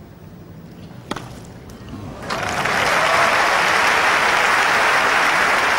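A tennis ball is struck with a racket about a second in. About two seconds in, the crowd bursts into loud applause for a cross-court winner that ends a long rally, and it carries on steadily.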